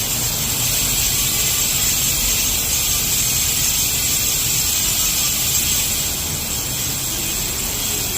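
Hope Pro 5 rear bicycle hub freewheeling, its pawls giving a steady high-pitched buzz, over a low rumble.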